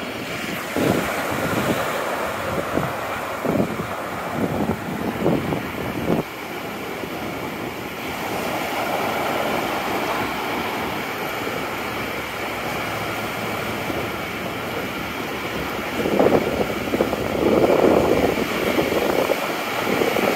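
Wind buffeting the microphone over the steady wash of breaking surf, with gusty thumps in the first few seconds and a louder swell near the end.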